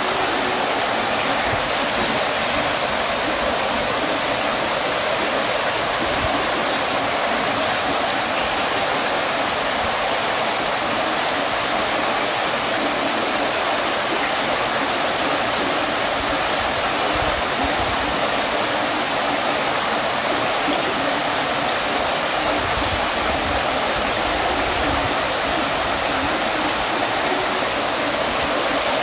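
Water fountain splashing steadily: falling water spattering in a continuous, even rush with no change in level.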